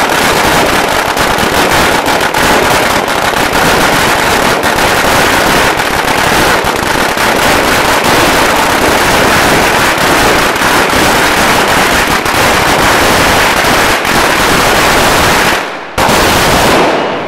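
A 100,000-shot string of firecrackers going off in one continuous, dense, rapid crackle. It drops out briefly about sixteen seconds in, bursts again, and dies away at the very end.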